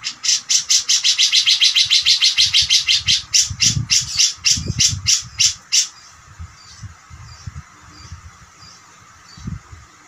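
Cucak jenggot (grey-cheeked bulbul) giving a rapid string of harsh chattering notes, about seven a second at first, then slowing and breaking off about six seconds in. A few faint single notes follow.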